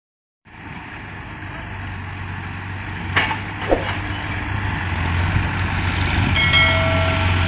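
Diesel farm tractors running and pulling loaded trailers, a steady low engine hum that grows louder, with two short falling squeals a little after three seconds. Near the end come two sharp clicks and a ringing chime.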